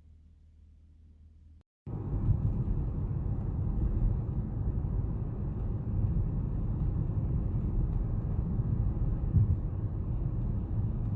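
Strong snowstorm wind buffeting the microphone: a loud, low, gusting rumble that starts suddenly about two seconds in, after a faint low hum.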